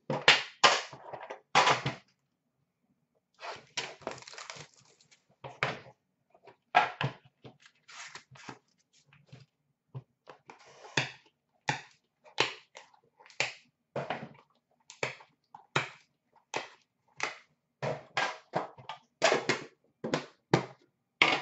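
Irregular clicks, taps and knocks of trading cards and a metal card tin being handled and set down on a glass counter.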